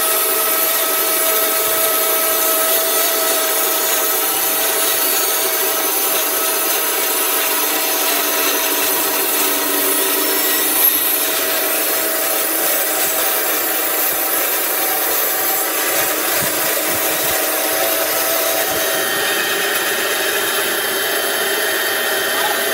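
Horizontal band sawmill running, its band blade cutting lengthwise through a log with a steady rasp and whine. The tone of the cut changes a few seconds before the end.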